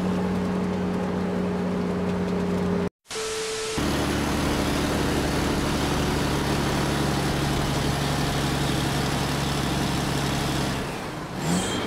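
Truck diesel engines running steadily, with no revving. First comes the crane truck, then, after a sudden cut, a heavy dump truck, with a brief louder sound near the end.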